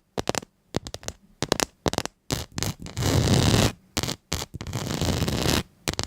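Close-up scratching and crackling: a quick run of short sharp clicks, then two longer stretches of rough scratching noise.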